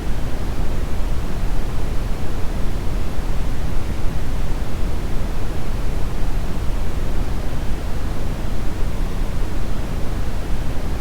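Brown noise: a steady, deep rumbling hiss, loudest in the bass and thinning toward the treble.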